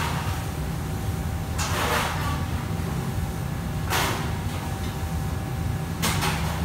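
Steady low roar from a commercial wok range and its exhaust hood. Three times, a short burst of scraping and sizzling comes as a metal ladle works the food in the wok.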